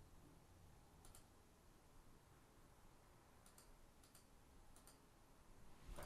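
Near silence, broken by a few faint, spaced-out clicks of a computer mouse.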